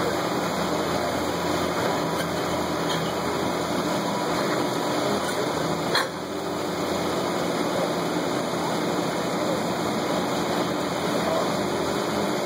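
Caterpillar 345B excavator's diesel engine running steadily under load as it works the bucket against a brick wall, with one sharp knock about six seconds in.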